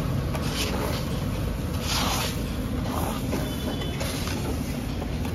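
Metal spatula scraping and turning chole masala that is sizzling on a large flat griddle (tawa), with a few scraping strokes about half a second, two seconds and three seconds in, over a steady low rumble.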